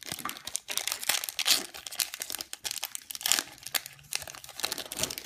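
Foil wrapper of a Pokémon trading card booster pack crinkling and crackling irregularly as it is torn open and the cards are slid out.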